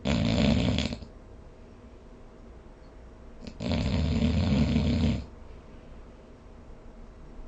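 Snoring in sleep: two snores, a short one at the start and a longer one of about a second and a half some three and a half seconds in, with quiet breathing gaps between.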